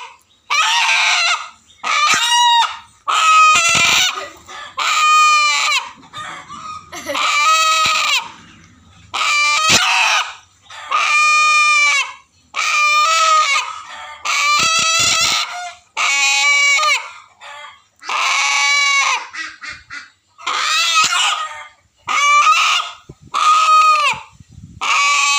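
A rooster held in the hand squawking loudly over and over, about eighteen separate calls, each up to about a second long, with short gaps between them.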